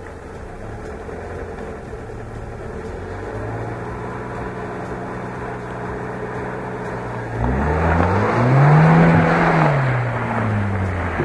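Chevrolet Niva's inline-four petrol engine running steadily, then revved hard about two-thirds of the way in, its pitch climbing and falling back over about three seconds under a loud rush of noise. It is the bellied-out car, jacked up and packed under a wheel, being driven to pull free of the mud.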